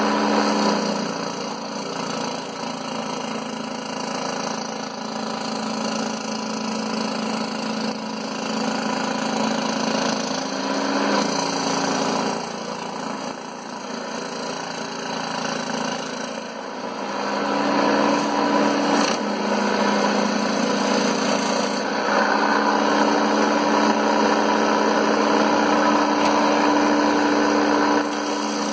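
Scroll saw running and cutting through an MDF board. A steady motor hum whose pitch and loudness shift as the board is fed; louder from a little past halfway.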